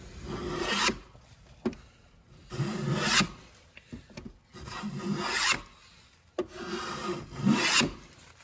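Hand plane shaving the edge of a wooden casement sash in long strokes, about four of them, each lasting about a second, with short pauses between. The sash is being trimmed where it binds against the frame so that it will close.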